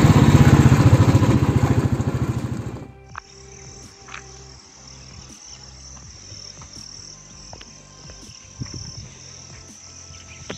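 A motorcycle's engine and wind noise while riding, cutting off abruptly about three seconds in. Then comes a steady high-pitched drone of insects.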